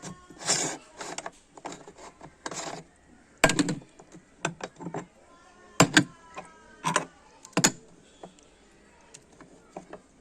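A string of irregular knocks and clatters of hard objects being handled, some leaving a short ringing tone; no motor is running.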